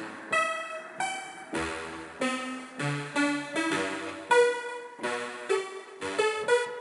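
Synth preset from Steinberg HALion 3's Hypnotic Dance library played from a keyboard: bright, plucky electronic notes and chords at an uneven pace of about two a second, each struck sharply and fading.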